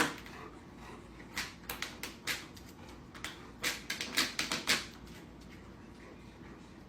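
Irregular light clicks and taps, a dozen or so, bunched in quick succession between about three and a half and five seconds in.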